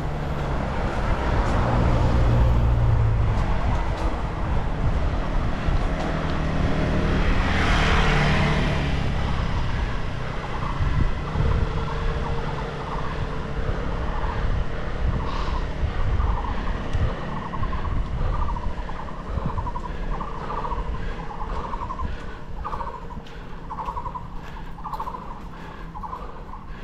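Wind and road rumble on a handlebar-mounted GoPro as a road bike climbs, with a car passing about eight seconds in. In the second half a faint pulsing repeats a bit faster than once a second.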